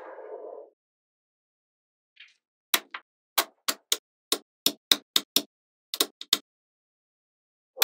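Small magnet balls clicking as they snap into place on a magnet-ball structure: about fourteen sharp, irregularly spaced clicks over three and a half seconds, starting a little under three seconds in. A brief soft rustle comes at the very start.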